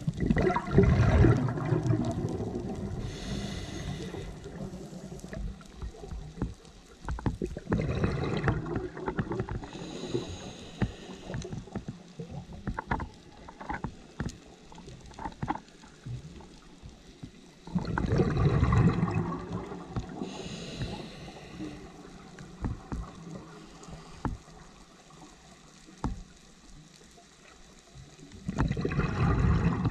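Scuba diver breathing through a regulator underwater: four loud bursts of exhaled bubbles about every ten seconds, each followed by the thin hiss of an inhale, with a run of small clicks midway.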